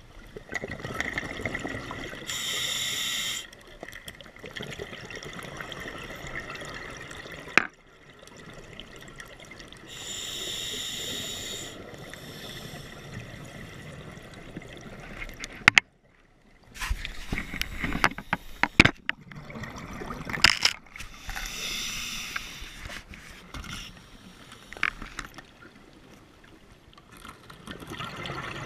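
Scuba diver breathing through a regulator underwater: about three hissing inhalations, each followed by a rumble of exhaled bubbles. Scattered clicks and knocks are heard, mostly in the middle of the stretch.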